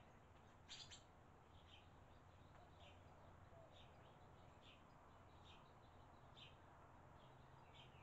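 Faint, short bird chirps repeating about once a second, with a louder chirp about a second in, over a low steady hum.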